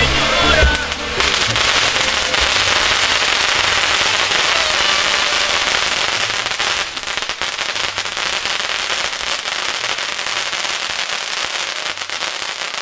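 Ground fireworks fountains spraying sparks: a loud, dense hiss from about a second in, turning into rapid crackling of crackle stars about halfway through.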